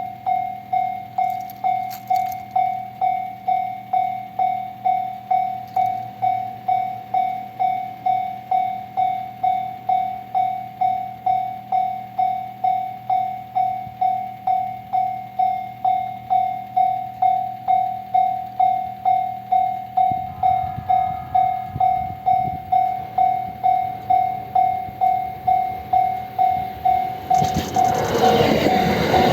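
Japanese level-crossing warning signal ringing its repeated 'kan-kan' tone, about two strikes a second. About two-thirds of the way in the rumble of an approaching E653 series electric train builds, and near the end the train reaches the crossing and passes loudly over it.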